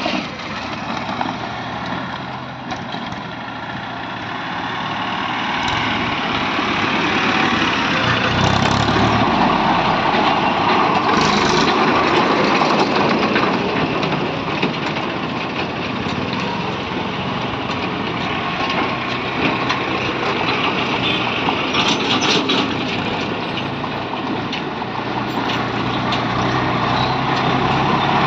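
Road traffic passing close by: a mix of vehicle engines and tyres, including a motorcycle. Near the end, a Mahindra 265 DI diesel tractor hauling a trailer approaches with a steady low engine note.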